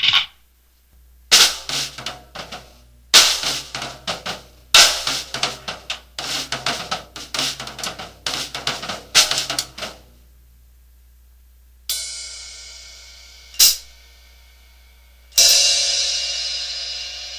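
Drum kit playing: quick hi-hat and snare hits in a rhythm for about nine seconds, then after a pause three cymbal crashes, each left to ring and fade.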